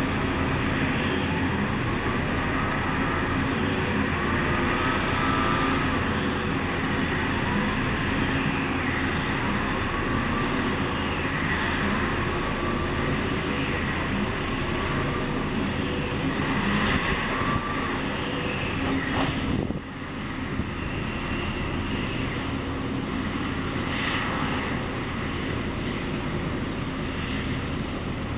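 Machinery of a Patterson gas drilling rig running with a steady low hum. Short high rising-and-falling squeaks repeat about every second and a half through the first dozen seconds, and the noise dips suddenly about twenty seconds in.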